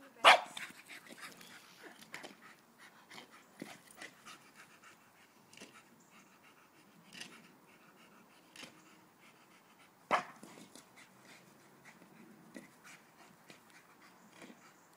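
Staffordshire bull terrier panting and snuffling as it noses and mouths a plastic ball, with many small clicks and scuffs. Two sharp, loud sounds stand out, one just after the start and one about ten seconds in.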